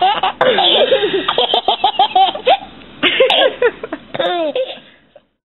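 A baby laughing hard in a string of high-pitched giggling bursts, which cut off suddenly a little after five seconds in.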